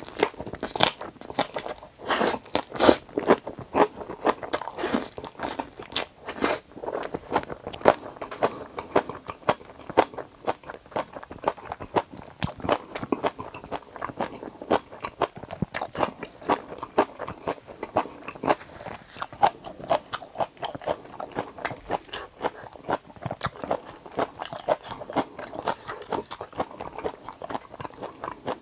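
Close-miked eating of Chapagetti black-bean noodles: a steady run of wet chewing clicks and crunchy bites, the loudest crunches in the first several seconds.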